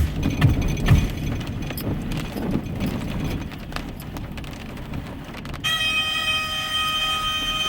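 Driving noise from a car in the rain, a steady hiss of road and tyres, with a few low thumps in the first second. About five and a half seconds in, a chord of steady high tones starts and holds.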